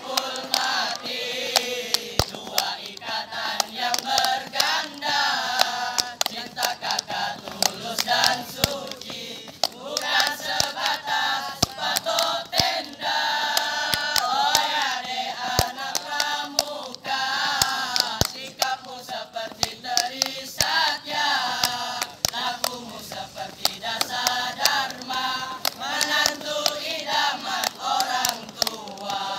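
A group of scouts singing a yel-yel chant together in unison, with many sharp percussive hits keeping time throughout.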